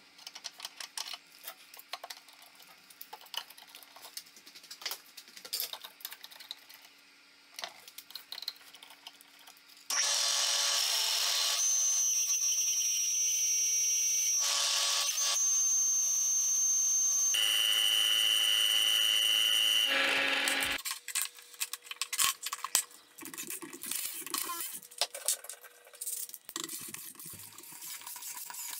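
Workshop handling noise of light clicks and taps, then about ten seconds of a power tool running with a high whine that shifts pitch a few times before it stops. More clicks and handling noise follow.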